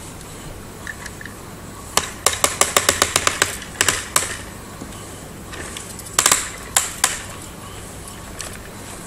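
Sharp plastic clicks and taps from hands handling a toy remote-control excavator. About a dozen come in a quick run starting a couple of seconds in, and a few more follow around six seconds in.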